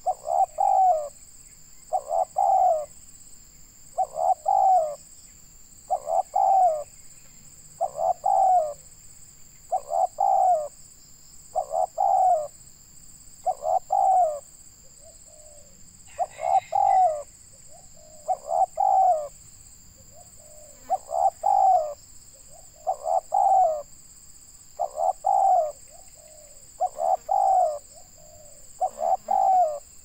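Spotted dove cooing: a short phrase of a few low coo notes repeated about every two seconds, some fifteen times, with a couple of shorter, fainter coos in between.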